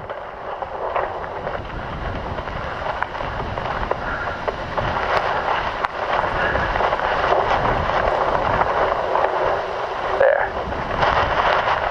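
Wind buffeting the microphone: a steady rushing noise with a low rumble, growing slightly louder toward the end.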